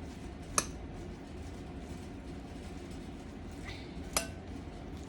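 Two light clinks of kitchenware, a utensil or dish knocking against a bowl, about three and a half seconds apart, the second ringing briefly, over a low steady background hum.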